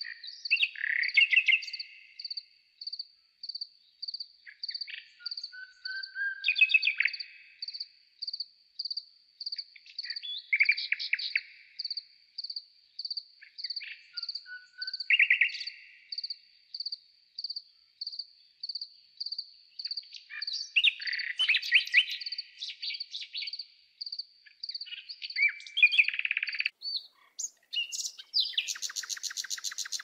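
Birds singing and calling in short phrases every few seconds over a steady high chirp that repeats about twice a second. Near the end comes a louder, buzzy trill.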